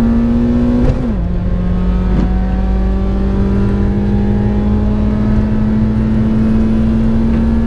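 Small car's petrol engine pulling hard at high revs, heard from inside the cabin. About a second in the pitch drops with an upshift, then climbs slowly and steadily as the car accelerates, over a steady rumble of road and tyre noise.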